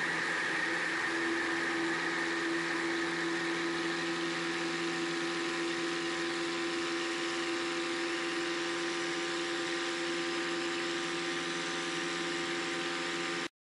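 Murphy Rebel amphibian floatplane's engine and propeller at takeoff power during the takeoff roll and climb-out: a steady drone with rushing wind noise on the float-mounted camera. The sound cuts off abruptly near the end.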